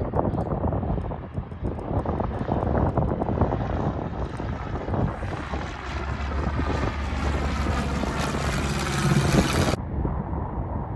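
Aircraft engines passing close, with a whine that builds up from about halfway through and stops suddenly near the end; wind gusts buffet the microphone throughout.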